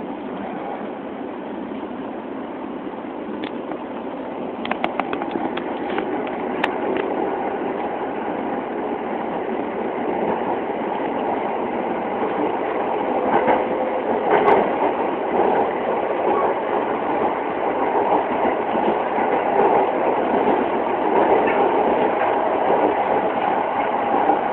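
Running noise heard inside the carriage of a 209 series electric commuter train: a steady rumble of wheels on rail with a faint hum, growing gradually louder, and a few sharp clicks. The sound is thin and dull at the top, as recorded through a mobile phone microphone.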